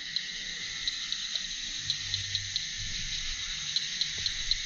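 Night-time insect chorus: a steady high-pitched drone of crickets with short chirps repeating irregularly a few times a second.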